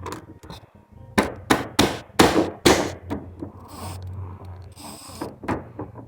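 Strikes on a container beaten as a makeshift drum: a quick run of five loud hits starting about a second in, then a few scattered softer ones.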